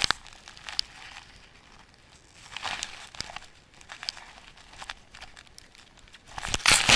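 Scattered crunching and rustling, with soft clicks, and a loud rush of noise near the end.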